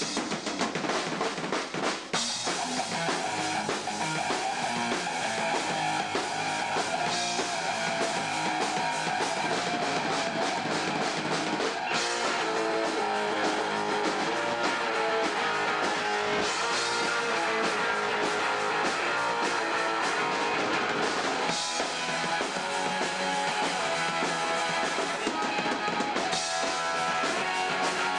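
A hardcore punk band playing live: distorted electric guitars and a drum kit, with the drums to the fore for the first couple of seconds before the guitars fill in. Recorded on a home camcorder, with a thin low end.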